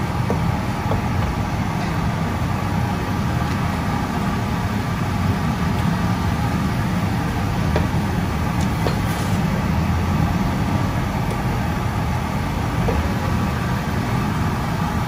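A steady low rumble with a hiss over it, unchanging throughout, and a few faint scrapes and taps of a wooden spoon stirring food in a stainless steel pot.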